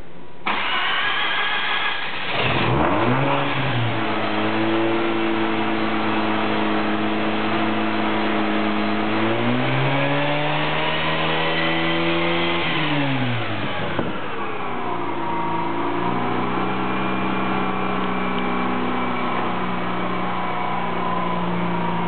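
Mazda RX-8's 13B two-rotor rotary engine, heard at the exhaust tip, cranking and starting about half a second in. It settles into a fast idle, is revved up and held for about four seconds, then drops back to a steady, slightly lower idle.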